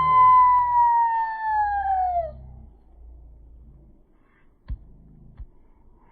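An owl giving one long, drawn-out wailing call that holds steady and then slides down in pitch, ending a little over two seconds in. Afterwards comes a low rumble with two sharp taps near the end.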